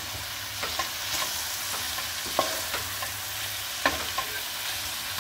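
Minced beef, onion, spring onions and dill sizzling in a stainless steel pot while a wooden spoon stirs them, with a few sharp clicks of the spoon against the pot.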